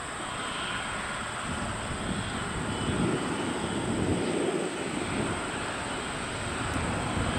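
Airbus A350-900 on final approach at low power, its Rolls-Royce Trent XWB turbofans making a steady rumble that grows slowly louder as the jet comes closer.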